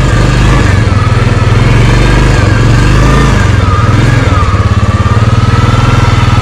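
Royal Enfield motorcycle engine idling, its low exhaust beat settling into an even pulse about halfway through. A thin wavering tone runs above it.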